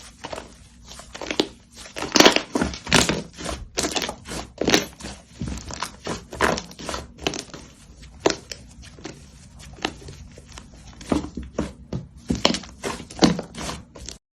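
Slime being squished and pressed by hand, making irregular sticky pops and crackles, several a second. The sound stops abruptly just before the end.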